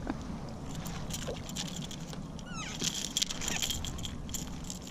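Handling noise as a small speckled trout is lifted from the water over a landing net: a string of sharp clicks and taps, denser in the second half, with a quick falling run of clicks about two and a half seconds in, over a low steady rumble.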